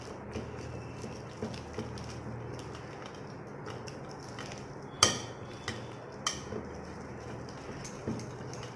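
A hand beating thick, wet batter in a stainless steel bowl: soft squelching with scattered clicks and a few sharp knocks of the steel bowl, the loudest about five seconds in, over a low steady hum.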